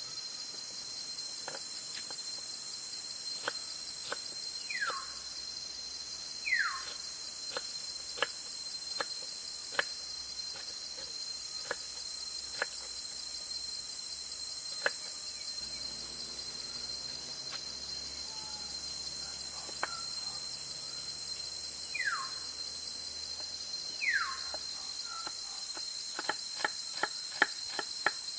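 A steady, high insect chorus buzzes throughout. A bird gives two pairs of quick falling whistled notes, one pair about five seconds in and the other about twenty-two seconds in. Scattered light clicks and taps run underneath and come in a quick run near the end.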